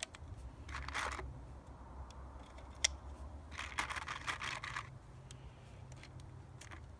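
9mm cartridges being hand-loaded into a brand-new Magpul 17-round Glock magazine: a sharp click about three seconds in as a round is pressed down into the magazine, and rattling and scraping twice as rounds are picked out of the cardboard ammo box. The new magazine loads a little stiff.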